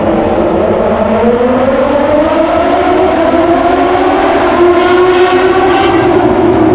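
A pack of Moto2 racing motorcycles, with Triumph 765 cc three-cylinder engines, accelerating hard off the start. The engine notes rise in pitch over the first few seconds, then hold steady.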